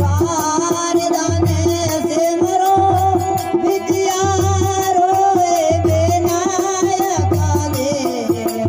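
Rajasthani folk devotional bhajan music: a sustained, wavering melody over a steady hand-drum beat of about one stroke every second and a half, with a bright metallic shimmer on top.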